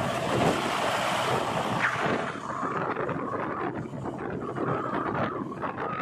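Wind rushing over the microphone while a JCB 3DX backhoe loader's diesel engine runs and it drives along the road.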